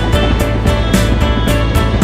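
Background music with a steady drum beat, cymbal strokes about three times a second over a steady bass line.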